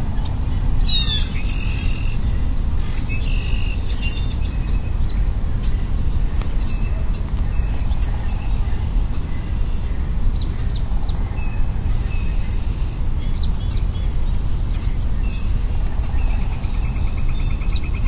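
Several wild birds calling and singing: scattered whistled notes and short chips, a quick run of falling notes about a second in, and a rapid even trill near the end. A steady low rumble lies underneath.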